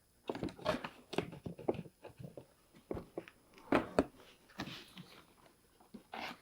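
Cardboard advent calendar door being pushed open and a small packaged product pulled out: irregular crackling, clicking and rustling of card and packaging.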